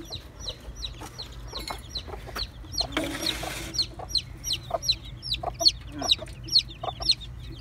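Young gamefowl chickens peeping: many short, high calls, several a second, growing louder in the second half. A brief rustle about three seconds in.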